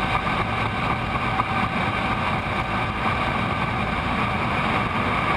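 Boeing 777F's two GE90 turbofans at takeoff thrust on the takeoff roll: a steady roar with several held whining fan tones over a low rumble.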